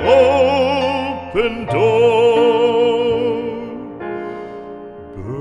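Classical art song: a singer holds the closing words in long notes with vibrato over piano accompaniment, and from about four seconds in the piano plays on alone, fading.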